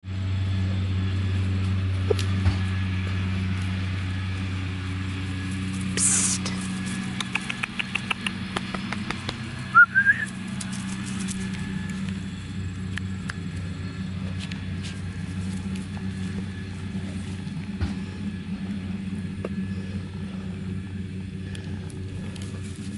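A steady low mechanical hum, like an engine running nearby. About six seconds in there is a short hiss, then a quick run of clicks, and just before ten seconds a brief rising whistle-like squeak.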